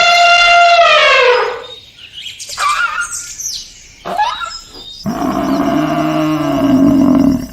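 Farm animal calls: a long pitched call that falls away near two seconds in, a few brief short calls, then a lower, longer call from about five seconds in.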